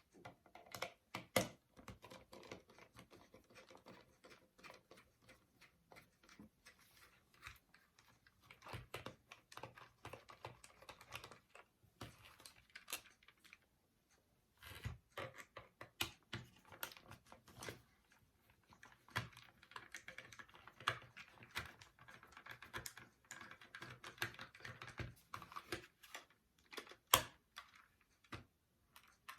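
Faint, irregular clicks and taps of a screwdriver and hands working on the screws of a plastic X-Shot toy dart pistol, with a sharper click about a second in and another near the end.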